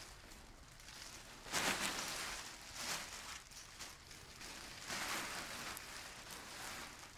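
Rustling of belongings being handled and packed, coming in three swells, the first and loudest about a second and a half in.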